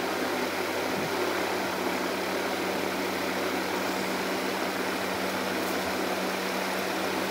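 Steady background hum and hiss, even throughout, of the kind a running fan or air-conditioning motor makes in a small room; no other sound stands out.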